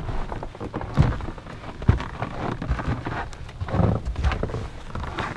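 Footsteps crunching through snow on a wooden deck and steps, with a few heavier thumps among them.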